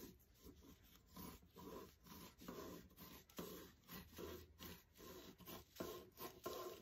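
Scissors cutting through a folded thin plastic tablecloth: a faint run of short crisp snips, about two or three a second.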